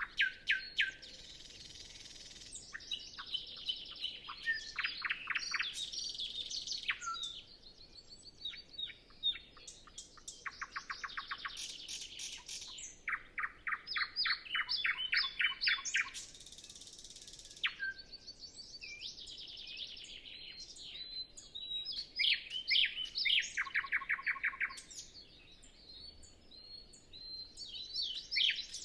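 A nightingale singing: varied phrases of fast repeated notes, whistles and buzzy notes, with short pauses between phrases.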